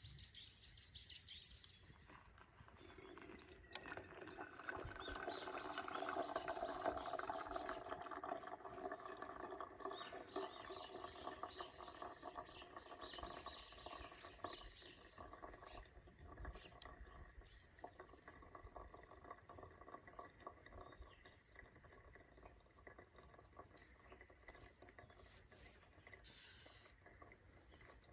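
Small wood fire crackling with light pops, with birds chirping now and then. A steady multi-tone hum swells up a few seconds in and slowly fades.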